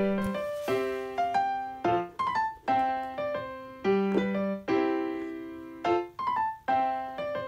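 Background piano music: notes and chords struck every second or so, each left to ring and fade.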